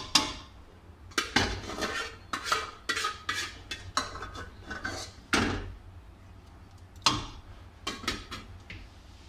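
Metal serving spoon clanking and scraping against aluminium cooking pots as chicken curry is scooped from a pan and spooned into a large stockpot for layering biryani. The strikes come irregularly, a dozen or so sharp clanks with short scrapes between them.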